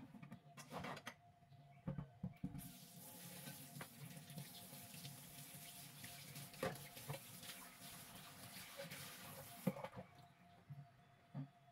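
Kitchen tap running into a sink, starting a couple of seconds in and shut off near the end, with a few knocks of things being handled.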